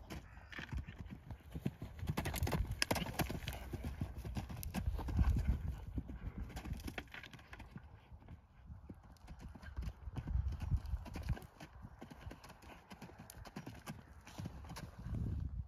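A horse's hoofbeats cantering on grass turf, with a low buffeting rumble that swells several times.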